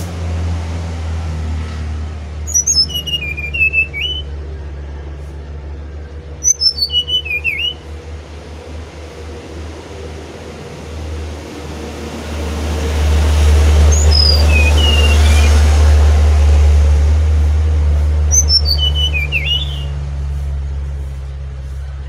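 Brown-chested jungle flycatcher singing four short phrases several seconds apart, each a quick run of high notes falling in pitch and ending in a twisting note, the third one fainter. Under the song a low engine rumble runs throughout and swells up in the middle.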